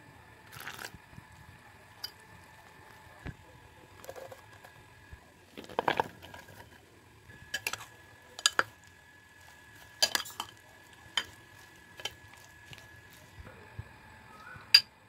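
Metal kitchen utensils, a wire whisk among them, clinking and knocking against a glass mixing bowl about a dozen times at irregular intervals, over a faint steady hum.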